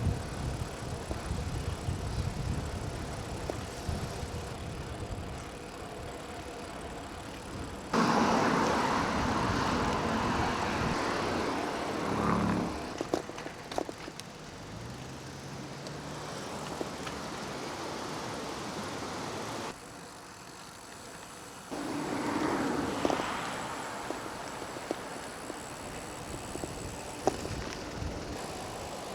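Riding noise from a bicycle on a road: a steady rush of wind and tyre noise that changes abruptly several times, with a motor vehicle's engine hum rising and passing near the middle.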